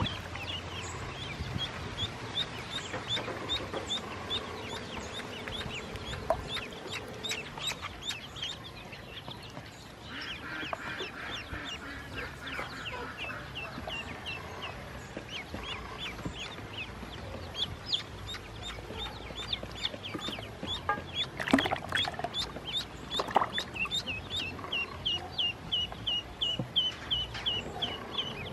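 A group of ducklings peeping continuously: rapid, short, high-pitched peeps, several a second, overlapping one another. Two brief, sharp, louder sounds come about two-thirds of the way through.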